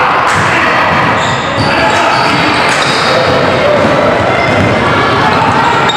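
Basketball dribbled on a hardwood gym floor amid a steady din of players and spectators calling out.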